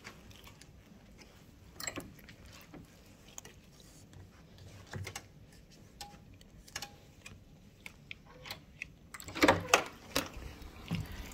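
Hotel room door being unlocked and opened: scattered small clicks and handling knocks, two faint short beeps in the middle, and a cluster of louder clicks near the end.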